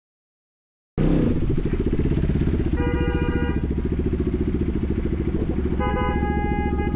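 Motorcycle engine running with a fast low pulsing beat, cutting in abruptly about a second in. Passing drivers' car horns honk in greeting over it: a short honk about three seconds in, then a longer one near the end.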